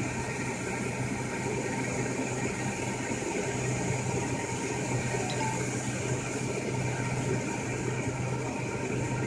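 Electrodynamic shaker of a vibration test system running, driving its horizontal slip table: a steady low hum over a constant noise.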